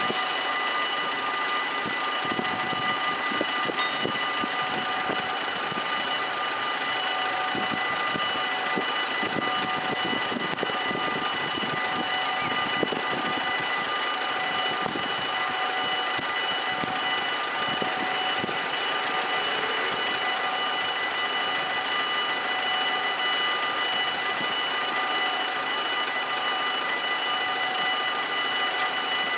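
Dutch automatic level-crossing (AHOB) warning bells ringing continuously while the barriers are down, warning that a train is approaching.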